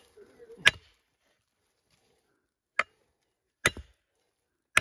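Steel digging hoe chopping into the earth to dig out a bamboo shoot: four sharp strikes, unevenly spaced, some with a short metallic ring.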